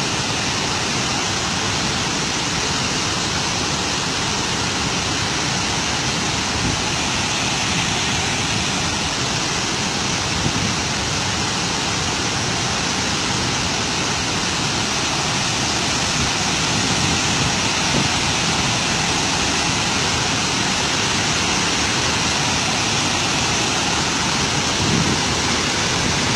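Flood release rushing down a concrete dam spillway with all eight floodgates open: a steady, loud rush of falling water.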